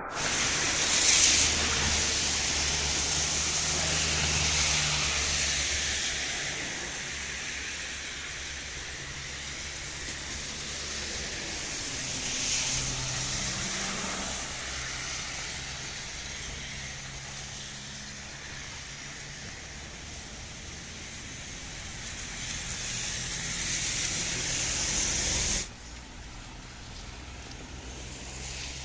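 Heavy rain hissing, with a low engine hum underneath. The hiss swells a few times and cuts off suddenly near the end.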